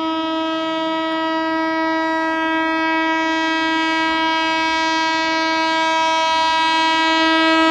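WAP-4 electric locomotive's horn sounding one long, steady blast on a single pitch, slowly growing louder as the train approaches.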